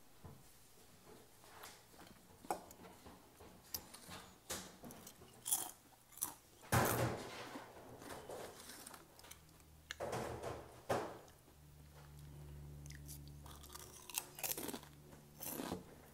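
Close-miked crunching and chewing of potato chips, in irregular crisp crackles that grow more frequent toward the end.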